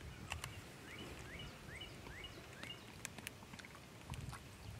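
A bird gives a quick run of five short rising chirps, about two a second, over faint field ambience with a few light clicks.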